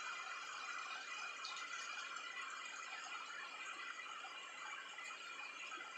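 Steady rain falling on wet paving, an even hiss, with several faint, steady high-pitched tones running through it.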